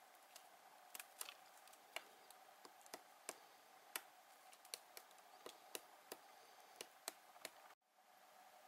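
Magellanic woodpecker pecking at a dead trunk: sharp, irregular single taps about two a second over a faint steady hum, stopping near the end where the sound cuts out briefly.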